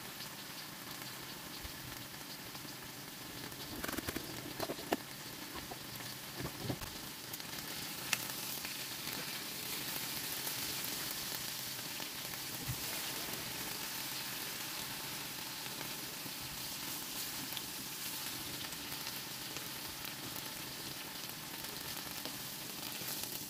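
Chicken thighs sizzling as they sear in a hot ridged grill pan, a steady high hiss of frying. A few brief knocks and clicks come between about four and eight seconds in.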